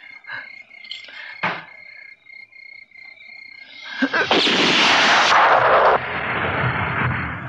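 Film soundtrack: a steady high chirring like night crickets with a few faint knocks, then about four seconds in a sudden loud, dense rushing blast of noise that stays loud through the end, a dubbed action sound effect.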